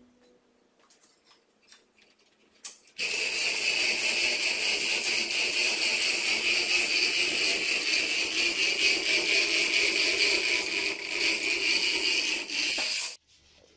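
A few faint clicks, then a loud steady hiss that starts suddenly about three seconds in and stops abruptly shortly before the end.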